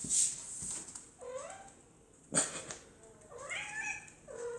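Domestic cat meowing twice, two drawn-out calls about two seconds apart that slide in pitch. A short sharp knock falls between them.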